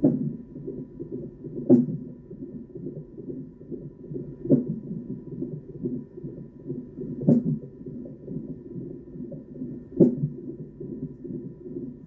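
A baby hiccuping at a regular pace, one hiccup about every three seconds, heard muffled through a baby monitor's speaker over a steady low rustle.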